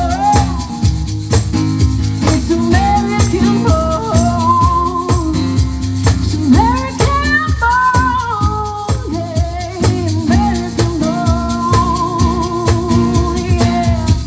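Live country band music: a steady drum beat under bass and guitar chords, with a lead melody line that bends and wavers with vibrato over the top.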